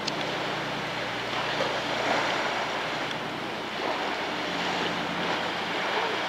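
Choppy harbour water washing and lapping against a shingle shore and concrete step, with wind, a steady rushing wash of noise. A low steady hum sits underneath.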